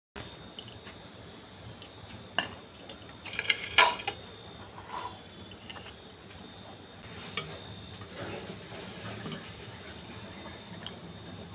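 Metal bowl and tumbler being set out on a ceramic plate: scattered clinks and knocks of tableware, with the loudest clatter about four seconds in.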